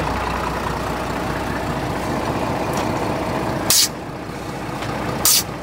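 Compact tractor engine idling steadily. Two short, loud hisses break in, one about two-thirds of the way through and one near the end.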